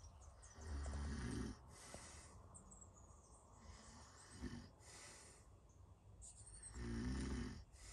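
A man snoring in his sleep: two low snores about six seconds apart, each lasting about a second, with a shorter, fainter one between them.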